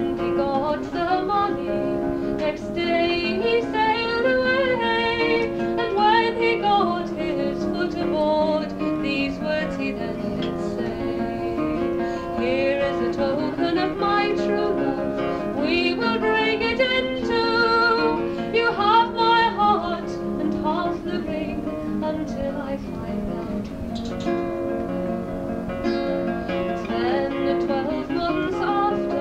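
A woman singing a traditional folk ballad to her own acoustic guitar accompaniment. It is a live performance captured on a tabletop tape recorder, so the sound is dull, with little treble.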